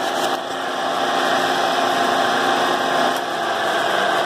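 Power tool spinning a straight cutter bit, running steadily as it cuts away the dividing wall inside a floor edger's dust collector housing.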